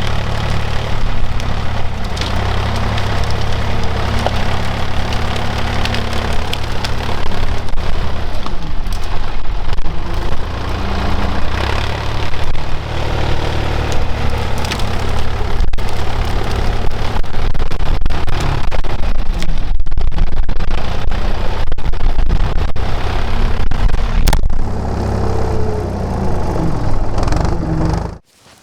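Tractor with a loader bucket, its engine running steadily while clearing, with knocks and clatter and wind buffeting the microphone. The sound drops away suddenly near the end.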